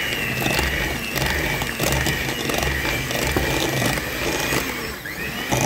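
Electric kitchen mixer's motor running steadily with a high whine, mixing a thick pastry batter. It slows briefly near the end and speeds up again.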